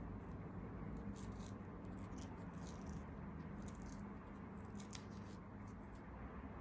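Faint hand-sewing sounds: four or five short, soft, high rustles of thread and fabric being handled on a small stuffed toy, over a steady low hum.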